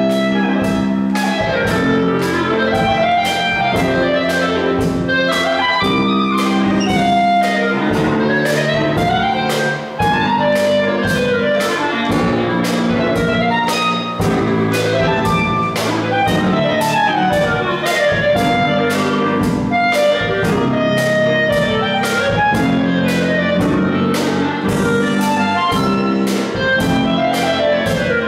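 Live jazz: a clarinet playing quick runs that climb and fall, over piano, bass guitar and a drum kit keeping a steady beat.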